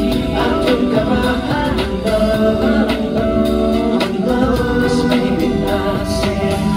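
A man singing live into a microphone over an instrumental backing track, amplified through the hall's speakers.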